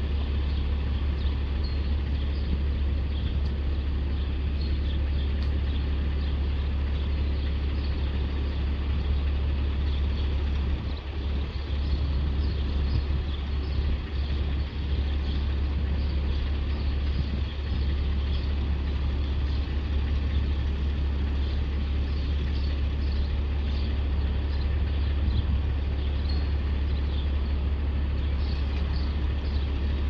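A steady low outdoor rumble with no gusting, with faint high chirps scattered through it.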